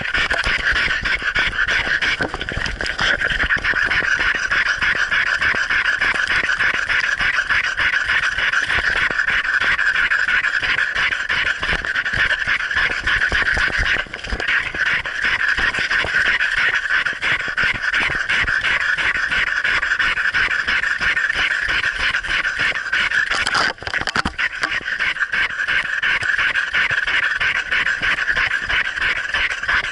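A dog panting quickly and steadily, heard right at its muzzle where the camera is mounted, breaking off briefly twice.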